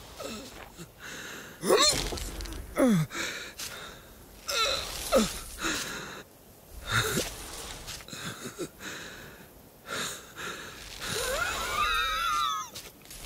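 Wordless vocal sounds of an animated sheep: short wheezes and gasping sighs, several sliding down in pitch, then a wavering, bleat-like whimper near the end.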